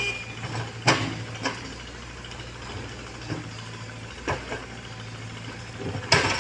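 Komatsu PC75UU mini excavator's diesel engine running steadily while its steel bucket digs into earth, with several sharp knocks of the bucket striking the ground, the loudest about a second in and near the end.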